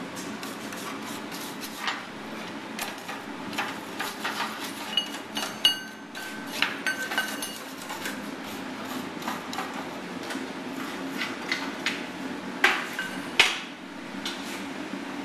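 Blacksmith's hand hammer striking a steel bar held in a vise, in irregular blows, some leaving a short metallic ring, the two hardest blows near the end. A steady hum runs underneath.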